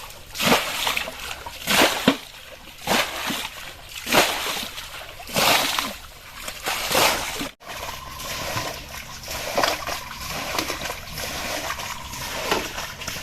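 Pond water being bailed by hand and thrown over a dam, a heavy splash about once a second. It breaks off about halfway and carries on as steadier splashing and sloshing.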